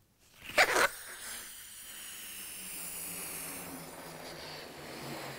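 A person blowing hard into a new, never-stretched latex balloon to inflate it: a sharp, loud breath about half a second in, then one long steady blow of air.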